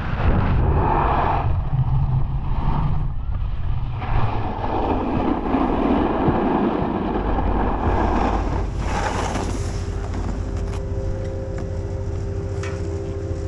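Snowboard sliding and carving over groomed snow, with wind buffeting the microphone. From about two-thirds of the way through, as the board slows, a steady hum of chairlift machinery comes in.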